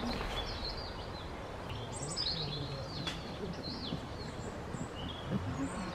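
Small woodland birds calling: a scatter of short, high chirps and quick falling whistles from several birds, at irregular intervals.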